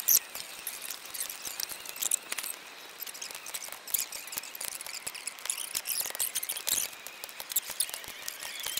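Open wood fire crackling in a stone fire pit: dense, irregular snaps and pops, with a few louder cracks.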